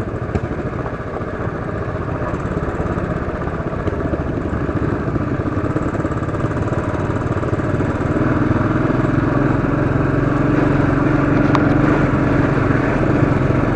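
Royal Enfield Classic 500's single-cylinder engine pulling steadily under load in second gear up a steep, rocky climb, growing gradually louder and settling into a stronger, steadier note from about eight seconds in.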